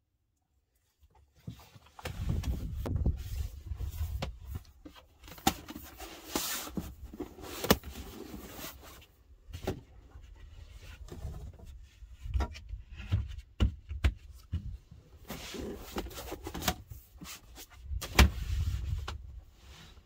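Plywood boards being shifted and laid flat over folded car seats: a string of wooden knocks, clunks, scrapes and rubbing. It starts after a brief silence, and the sharpest knock comes near the end.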